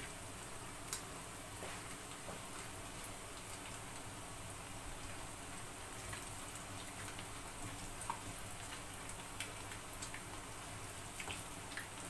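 Batter-coated small fish frying in oil in a frying pan: a steady, low sizzle with scattered crackles and pops.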